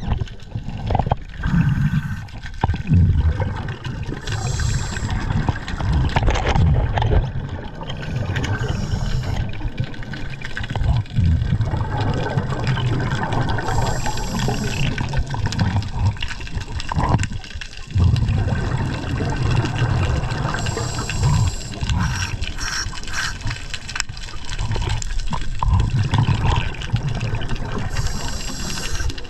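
Water rushing past an underwater camera, low and uneven, with short hissing bursts every few seconds.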